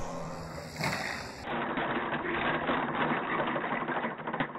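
Quarter-scale radio-controlled model aircraft touching down and rolling out after landing: a steady, dense rattling buzz from the airframe and wheels, heard through its onboard camera for most of the clip.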